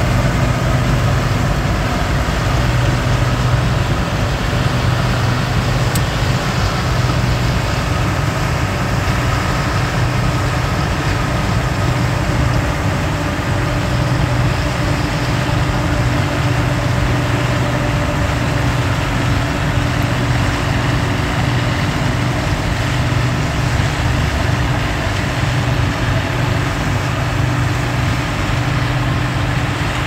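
Two Gleaner combines (M2 and L2) running steadily under load while harvesting soybeans: a continuous drone of engines and threshing machinery.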